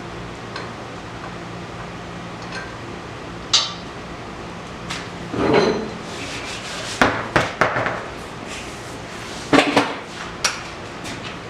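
Scattered clanks and knocks of metal parts and hand tools being handled, with a quick run of knocks around the middle and another pair near the end, over a steady fan hum.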